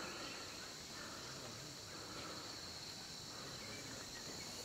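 Steady chorus of insects in dense jungle, a continuous high-pitched buzzing that holds even throughout.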